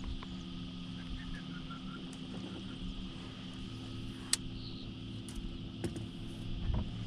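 Yamaha 90 hp outboard motor idling, a steady low hum, with a few faint clicks about four to six seconds in.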